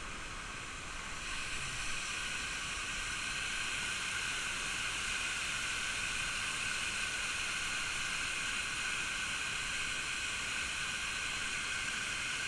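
Steady rushing of water pouring over rock ledges in a creek, a little louder after about a second and a half.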